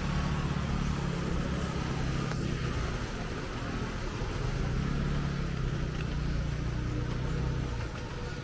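A motor vehicle's engine running close by with a steady low hum that falls away near the end, over the constant hiss of falling rain.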